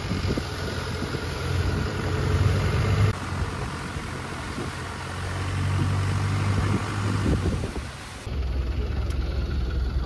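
Boat engine running steadily, a low drone under wind and water noise, with abrupt jumps in the sound about three and eight seconds in.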